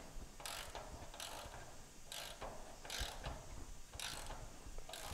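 Ratchet wrench tightening a bolt on a car chassis: short clicking strokes of the handle, roughly one a second, with a pause near the middle.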